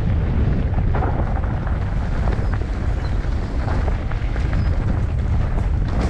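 Wind buffeting the microphone: a steady low rumble that rises and falls in gusts.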